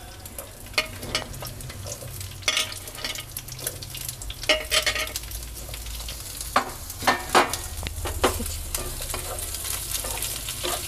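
Chunks of onion and green capsicum frying in hot oil in a nonstick frying pan, with a steady sizzle. Several sharp knocks and clatters as pieces drop into the pan and are stirred, the loudest in the middle and later part.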